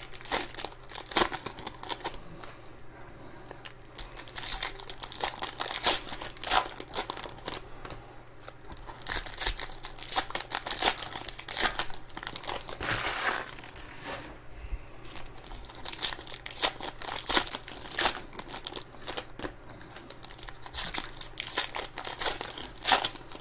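Foil wrappers of 2021 Panini Mosaic Quick Pitch baseball card packs being torn open and crinkled by hand, in irregular rustling, crackling bouts.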